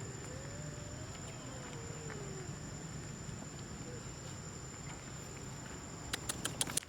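Steady high-pitched insect drone from the surrounding trees. A faint wavering call comes in the first couple of seconds, and a quick run of about five sharp clicks comes near the end.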